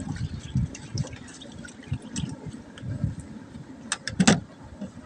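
Hands being washed with water: irregular splashing and trickling, with scattered knocks and a few sharp clicks about four seconds in.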